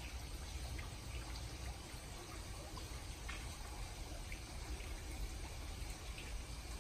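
Aquarium water trickling steadily over a low hum, with scattered faint ticks.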